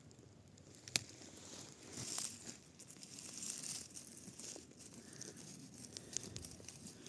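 Irregular rustling and crinkling, with a sharp click about a second in.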